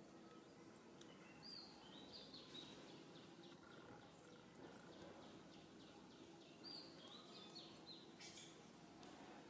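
Near silence: faint outdoor background with a small bird chirping in short, high, repeated notes, in one run from about a second and a half in to the middle, and another near the end.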